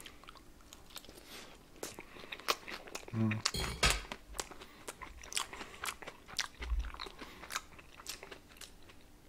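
Close-up chewing of a mouthful of crunchy fried food, fried potato finger noodles and cornflake-coated hot dogs, with many small, irregular crunches. A brief hum comes about three seconds in, and a dull bump follows a few seconds later.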